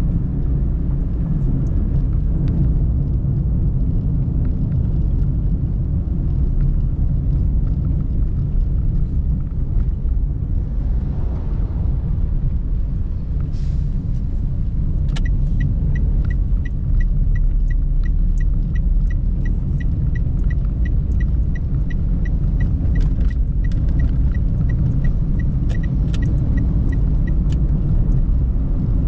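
A car driving, its engine and road noise making a steady low rumble. From about halfway in to near the end there is a regular ticking, about three ticks a second.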